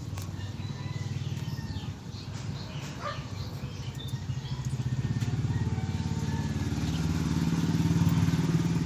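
A motor vehicle's engine running at low speed with an even, rapid pulse, growing louder through the second half.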